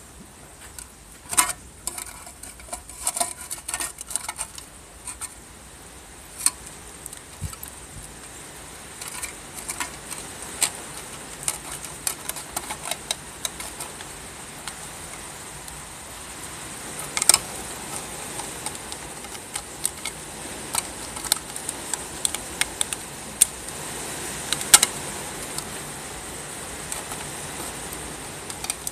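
Steady hiss of heavy rain that gets louder through the middle, with scattered sharp clicks and clinks of the tin can and steel parts being handled.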